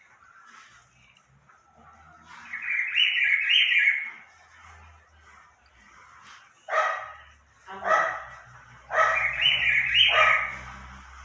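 A pet animal calling: a long wavering call, then two short sharp yelps, then another long wavering call.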